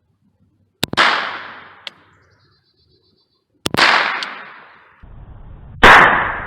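Three single shots from an AR-15 pistol firing .22 rounds through a conversion kit, spaced two to three seconds apart. Each crack is followed by a fading echo lasting about a second, and the last shot is the loudest.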